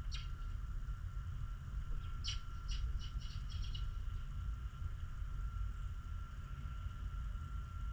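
Small songbird chirping: one short chirp right at the start, then a quick run of about six chirps a couple of seconds in, over a steady low rumble and a faint steady hum.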